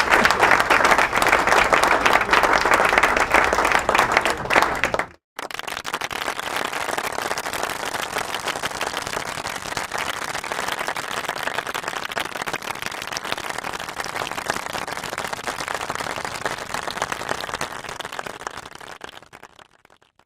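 Crowd applause: a dense, loud round of clapping that cuts off abruptly about five seconds in, then after a brief gap a second, quieter round of crowd applause that fades out near the end.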